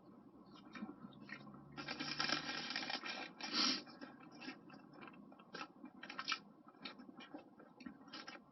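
Close-up eating of takeaway chips: scraping and rustling noise for about a second around two seconds in, then chewing with many small crunches and mouth clicks.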